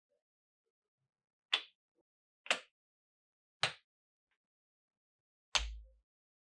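Marbles clicking sharply against wooden and plastic marble-run pieces: four separate clicks about a second apart, the last with a dull low thud beneath it.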